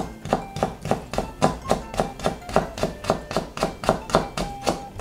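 Chef's knife chopping pink-skinned daikon radish into thin strips on a plastic cutting board: a steady rhythm of about three to four blade strikes on the board a second.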